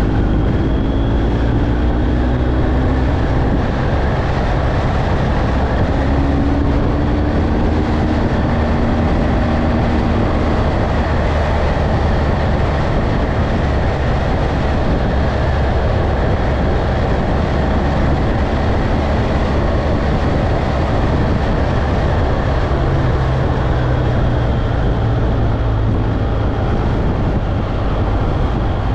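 Motorcycle engine running under way, heard from the rider's own bike, over a steady rush of wind and road noise. The engine pitch rises and falls a few times with throttle and gear changes.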